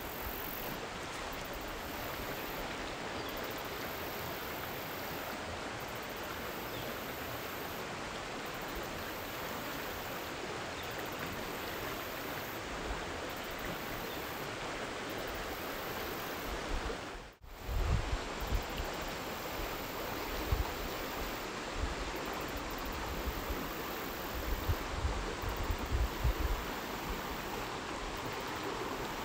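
Steady rush of flowing water. It cuts out for an instant about two-thirds of the way through, and a few low thumps follow in the later part.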